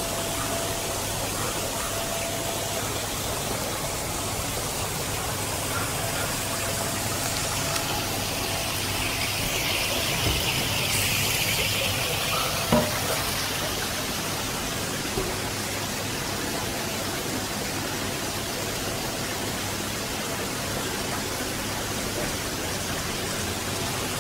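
Water churning in a tub crowded with koi, a steady rushing hiss, with a couple of short knocks about halfway through.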